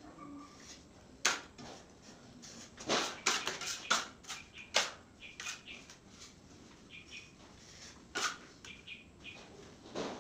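Steel putty knife scraping joint compound on a hand trowel and across a fibre-cement ceiling joint, in short scrapes at irregular intervals.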